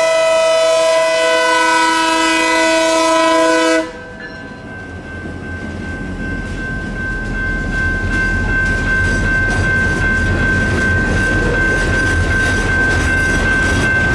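Locomotive air horn sounding a chord of several notes, held and then cut off sharply about four seconds in. Then a train running by: a low rumble and clickety-clack of wheels on rail joints that grows louder, with a steady high whine throughout.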